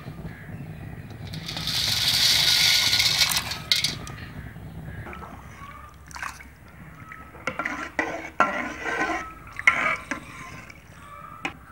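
Dry macaroni tipped into a pot of water, pouring and splashing for about two seconds. Then scattered knocks and clinks as a metal ladle stirs it in the aluminium pot.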